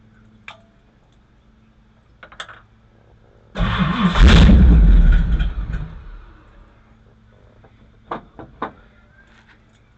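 1959 Ford Thunderbird's V8 cranking and catching, running loudly for about two seconds and then dying away, with a few sharp clicks before and after. It won't stay running on its own, a no-idle condition that the owner puts down to plugged carburetor jets.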